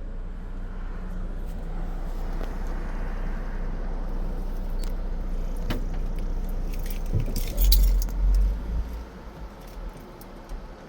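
Motorised garage door running, with a steady low hum and the door's metal rattling as it moves. About seven and a half seconds in comes a louder rumbling clatter lasting about a second, after which the sound drops away as the door stops.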